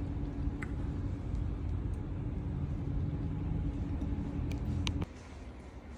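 Steady low rumble with a constant hum, a vehicle's engine running, with a few faint clicks. It cuts off suddenly about five seconds in, leaving a quieter low hum.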